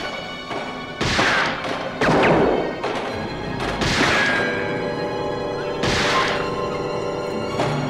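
Dramatic film score under a run of loud bangs and crashes, hitting about one, two, four and six seconds in.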